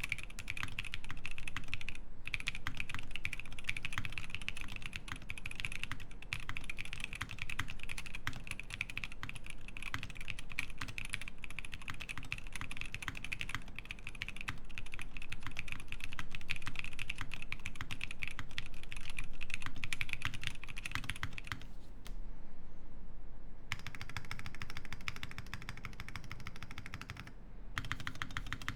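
Fast continuous typing on a Leaf65 mechanical keyboard with lubed Tecsee Jadeite switches, an aluminium plate, full foam and PBT keycaps, giving dense rapid key clacks. About three-quarters of the way through, the typing stops briefly, then resumes for a few seconds with a brighter, thinner click before the fuller sound comes back.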